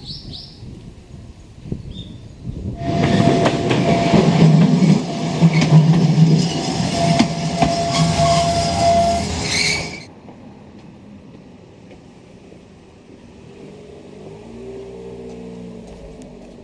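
A loud passing vehicle that starts about three seconds in and cuts off abruptly about ten seconds in, followed by a quieter low hum.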